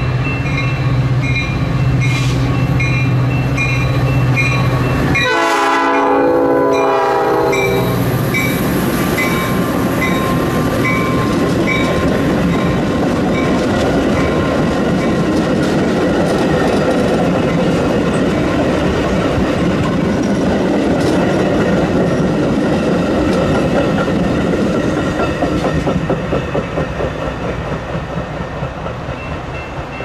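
A grade-crossing bell rings steadily while a diesel locomotive approaches. About five seconds in, its horn sounds a chord of several tones for roughly three seconds. The train then passes close by with wheels clacking over the rail joints, and the noise fades near the end.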